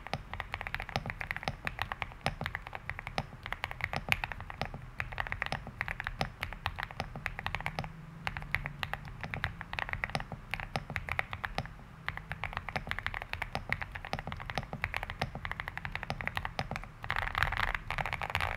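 Continuous fast typing on a Weikav D75 aluminium-case mechanical keyboard with Cherry-profile keycaps, a dense run of key clicks. It gets louder and busier near the end.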